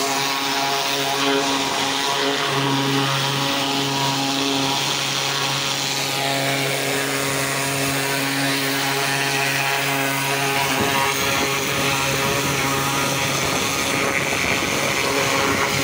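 Kärcher commercial pressure washer running steadily: a motor and pump hum under the hiss of the high-pressure jet blasting mud off steel excavator tracks.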